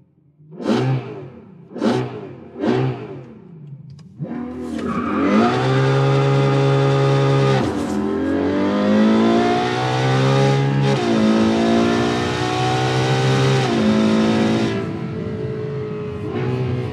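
Ferrari FF's 6.2-litre V12 revved in three quick throttle blips, then accelerating hard: the engine note climbs, drops sharply at two upshifts of the dual-clutch gearbox and climbs again, then eases off near the end.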